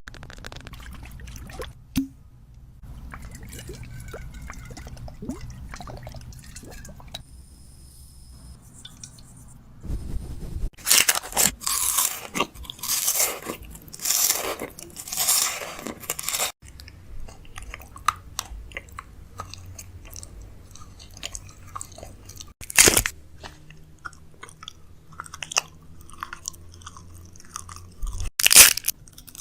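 Close-up crunching and chewing of food, with a dense run of loud crunches in the middle and a few single loud crunches later.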